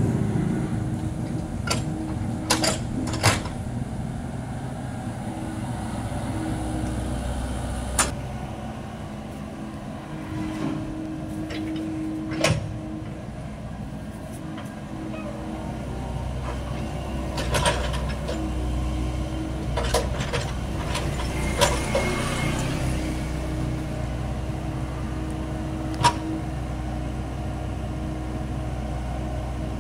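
Komatsu hydraulic excavator's diesel engine running steadily, with a hydraulic whine that comes and goes as the boom and bucket move. Sharp knocks sound several times as the bucket works the soil.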